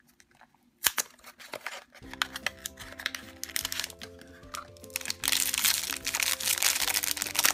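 A small cardboard blind box snaps open about a second in. The foil blind-bag wrapper taken from it then crinkles loudly as it is handled, loudest from about five seconds in. Background music comes in about two seconds in.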